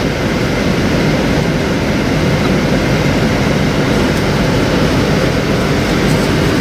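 Steady rumble of a moving vehicle.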